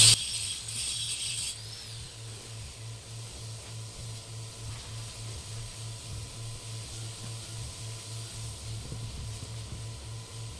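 Hyundai Accent 1.4-litre engine idling roughly: a low hum that pulses about three to four times a second as the idle hunts up and down, a fault that has set no trouble codes. A hiss fades out about a second and a half in.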